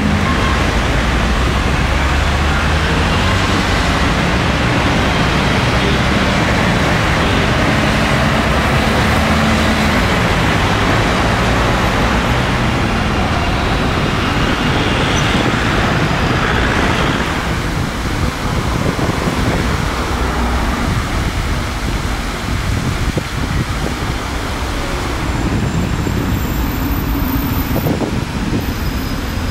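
Steady road traffic: cars and vans driving past on a busy city roundabout, their engines and tyres blending into one continuous noise that eases off a little partway through.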